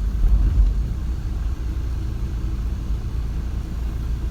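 Van driving along a road: a steady low rumble of engine and road noise heard from inside the cab.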